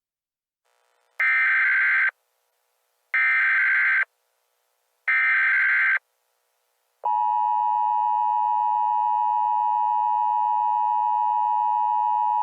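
Emergency Alert System header: three screeching bursts of SAME digital data, each just under a second long, then a steady attention tone that starts about seven seconds in. Together they mark the start of an emergency alert broadcast.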